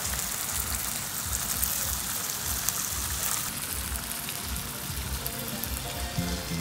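Food sizzling on a hot cast-iron sizzler platter, a steady crackling hiss that weakens after about three and a half seconds, over background music with a steady beat.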